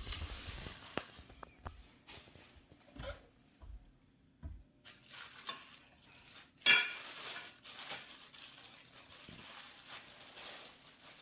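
Metal meat grinder parts being handled and set down on a table: irregular clinks and clatters, the loudest a ringing clank about six and a half seconds in.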